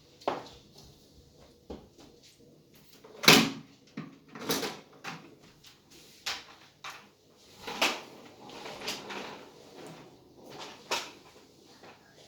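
Sand-and-glitter slime being squished and worked by hand, giving irregular squelching pops and crackles, the loudest about three seconds in.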